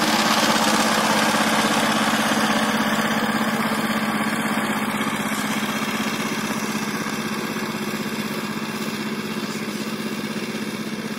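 Two-wheel power tiller's single-cylinder diesel engine running steadily while its rotavator tills the soil. The sound slowly fades as the tiller moves away.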